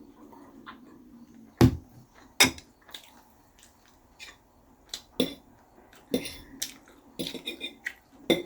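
Cutlery and dishes clinking and knocking during a meal. There are two loud knocks about a second apart, then scattered lighter clicks and a busier run of clatter near the end.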